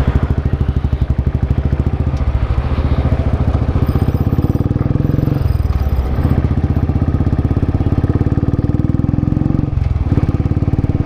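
Motorcycle engine pulling away and accelerating along the road, its pitch rising and then dropping at gear changes about halfway through and again near the end.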